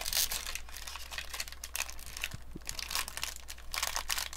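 Trading card pack wrappers crinkling as the packs are handled and pulled from the rack pack's wrapping: a continuous run of crackly rustles.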